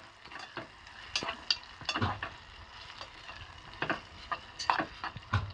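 Steel spoon stirring thick mint-coconut chutney in an aluminium pot over hot tempering oil: a light sizzle under a series of irregular clinks and scrapes of the spoon against the pot.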